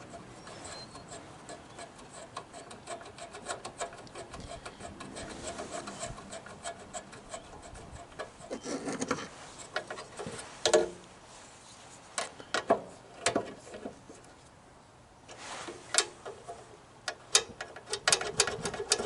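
Hand work on a small mower engine's bracket and linkage: rubbing and scraping of parts with a quick run of fine clicks, then a string of separate sharp clicks and knocks from the second half on.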